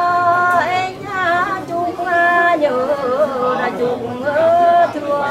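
A woman singing a Mường folk song in a single voice, drawing out long held notes with wavering, bending ornaments.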